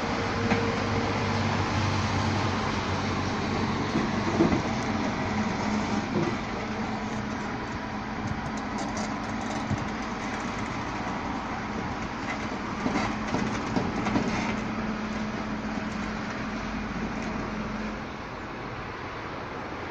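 Garbage truck running with its compactor working, a steady hum under it, and knocks and clatters as bulky waste is thrown in and crushed. The hum cuts off near the end, leaving the engine running more quietly.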